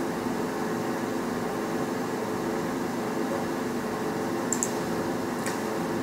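A steady mechanical hum, like a fan running, with a quick double click about four and a half seconds in and another single click a second later.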